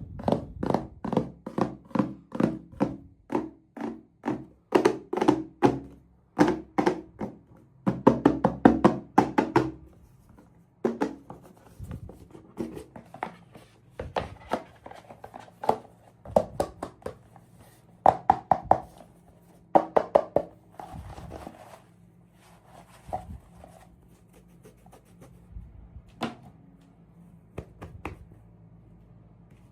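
Hard taps and knocks of small plastic toys and packaging being handled, about two a second for the first ten seconds, then sparser and quieter.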